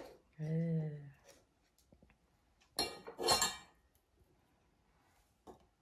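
Kitchen knife clicking and clattering against a cutting board as apples are sliced, with a cluster of louder clatters about three seconds in.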